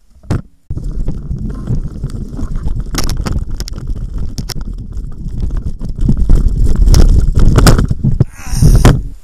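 Specialized Stumpjumper 6Fattie mountain bike ridden over wet rock slabs: a heavy rumble of tyres and wind on the microphone, broken by sharp knocks and clatters of the bike jolting over rock, loudest a little past the middle. The rumble starts about a second in after a brief near-silent break.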